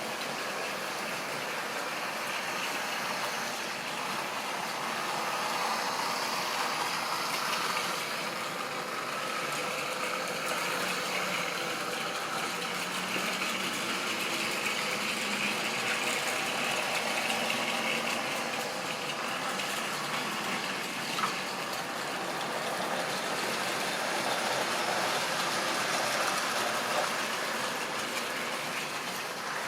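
Model train running on the track: the locomotive's motor whirring and the wheels rolling on the rails, a steady noise that gently swells and fades, with one short click about twenty-one seconds in.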